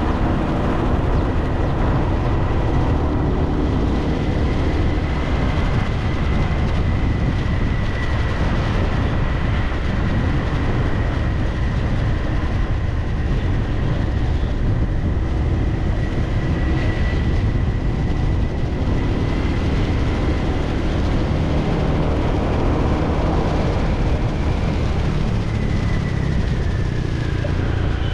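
Motor scooter being ridden: a heavy, steady low rumble with a thin, steady high whine over it. The whine falls in pitch near the end as the scooter slows.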